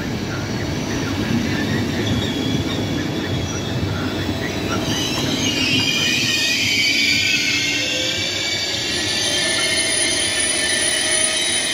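Intercity passenger coaches rolling past with a low rumble; from about five seconds in, a high, drawn-out squeal of braking wheels takes over as the train slows.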